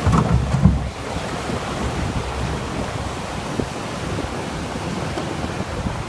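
Storm waves surging over a seafront promenade: foaming sea water rushing across the walkway, with wind buffeting the microphone. Loudest in the first second, then a steady rush.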